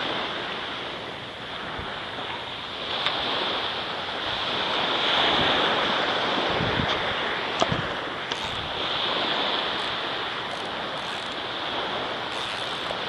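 Small waves washing up on a sandy beach, swelling and easing, with wind on the microphone. A few light clicks near the middle.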